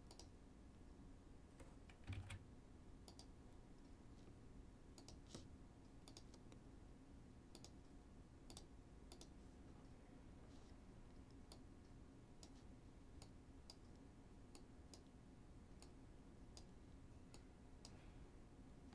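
Near silence broken by faint computer mouse clicks, roughly one a second, as puppet pins are placed and dragged, with a soft bump about two seconds in.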